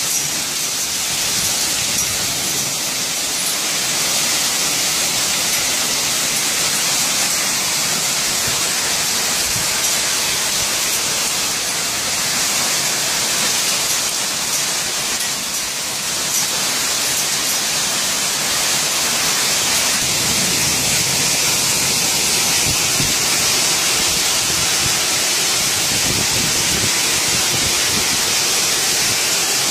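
Heavy downpour in a thunderstorm: rain pouring down in a steady, even hiss.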